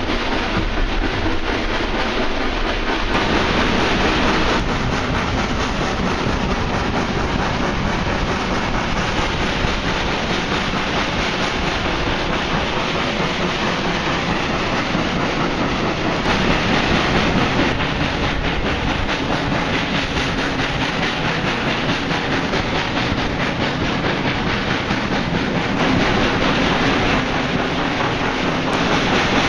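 Passenger train in motion, heard from inside a carriage at an open window: a steady rumble and clatter of wheels on the rails.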